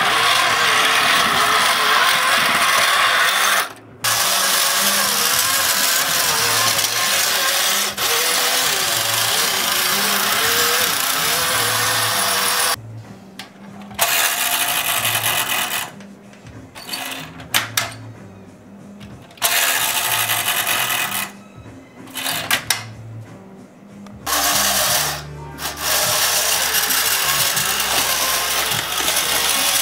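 Electric motor and gear drive of a 1970s Gama Faun toy dump truck running, heavily distorted into a harsh hiss with a low pulsing underneath. It cuts out several times in the middle, then runs on.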